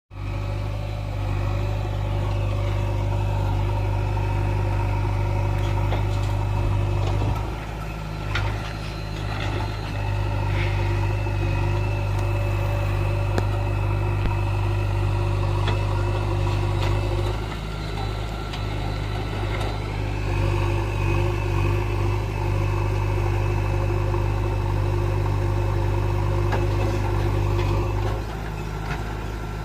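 Diesel engine of a JCB 3DX backhoe loader running steadily while working, its note dipping briefly about three times.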